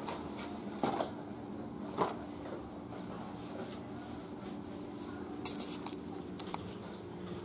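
Steady low hum of a quiet room, broken by a few light clicks and knocks; the two loudest come about one and two seconds in, with smaller ones later.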